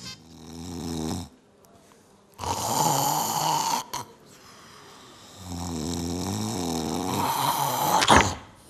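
An actor's stage snoring, three snores: a short one at the start, a rasping one about two and a half seconds in, and a long drawn-out one that ends with a sharp click about eight seconds in.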